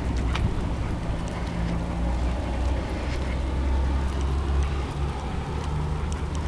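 Steady low rumble of a car engine and street traffic nearby, with a few faint ticks.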